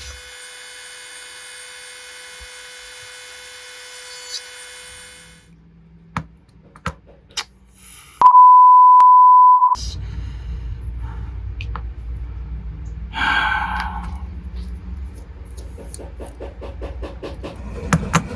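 A loud single-pitch bleep lasting about a second and a half, the standard tone used to censor a swear word. Before it there is a steady electronic hum of several tones for about five seconds, then a few sharp clicks. A low rumbling noise follows the bleep.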